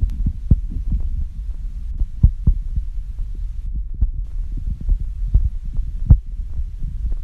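Irregular low thumps, a few a second, over a steady low rumble: a rubber car tire bumping and scraping on a tile floor as a dog plays inside it.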